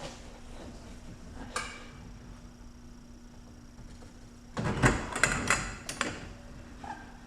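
Hand tools clicking and clanking on a sway bar end link nut: one sharp click, then a quick run of metallic clanks a few seconds later.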